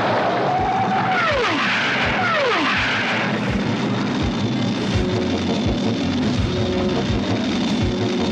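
Cartoon flying-vehicle sound effect for the Wind Raider: a jet-like whine that swoops down in pitch twice within the first three seconds, then holds a steady high whine, over background music with a steady beat.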